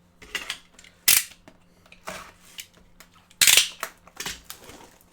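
Trading cards being handled and set down on a table: a sharp tap about a second in, a louder rustle a little after three seconds, and softer shuffling in between.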